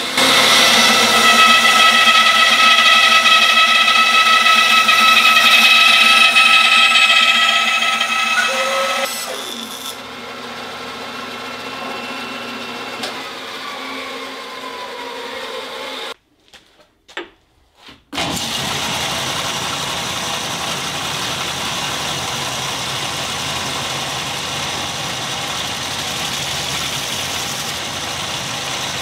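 Band saw cutting through a block of pallet wood, loud with a high ringing whine; the cut ends about nine seconds in and the saw runs on without load, its pitch slowly sinking. After a brief silence, a belt grinder runs steadily.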